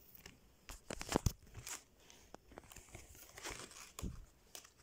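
Clear plastic photo-album sleeves crinkling and rustling as a page is handled and turned, in irregular crackles, the sharpest about a second in.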